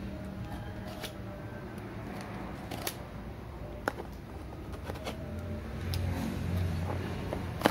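A small knife cutting and scraping at the tape and cardboard of a tightly packed parcel, with a few sharp irregular clicks. A low rumble swells about six seconds in.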